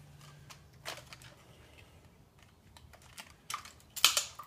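A few scattered light clicks and a short rattle about four seconds in, from keys being handled at the motorcycle's ignition. The starter is not yet heard.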